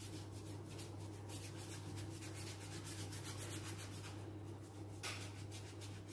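Paintbrush scrubbing back and forth on paper, a quick run of dry rubbing strokes, about three or four a second, with one louder stroke about five seconds in.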